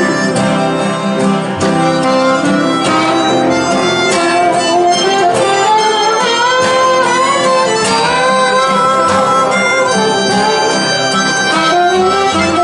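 A blues band playing live: a harmonica cupped against a microphone takes the lead with bending notes over strummed acoustic guitar and a plucked upright bass.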